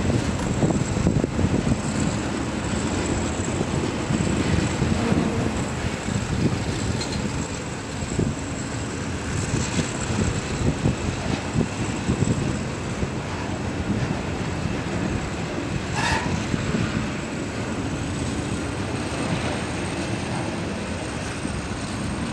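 Container freight wagons rolling past on the rails: a steady rumble of steel wheels on track, with irregular clacks as the wheels cross rail joints.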